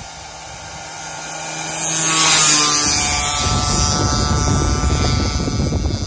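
Wangye CBC 50 two-stroke engine approaching and passing close by at speed, a buzzing whine that grows louder to a peak about two seconds in and drops in pitch as the bike goes past. After the pass, loud low rumbling noise, like wind buffeting the microphone, covers the fading engine.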